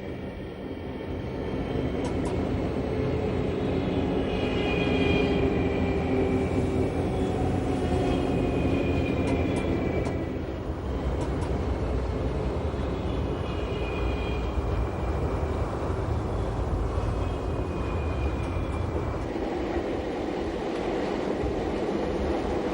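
Electric train running along the track with a steady rumble. A higher whine returns every few seconds, falling slightly in pitch each time.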